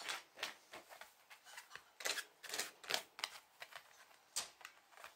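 Shiba Inu scraping at a tatami mat with its front paws, digging: a run of dry scratching strokes, two or three a second and uneven in strength, the loudest around the middle.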